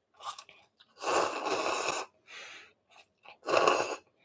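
A person slurping curry noodle soup, drawing air in with it. A long slurp of about a second comes first, then a short quieter one, and another strong slurp near the end, with small clicks between.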